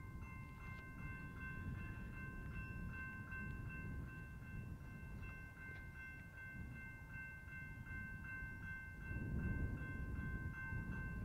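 Railroad grade crossing warning bell ringing steadily at about two strikes a second, the signal that a train is approaching, over a low rumble that swells about nine seconds in.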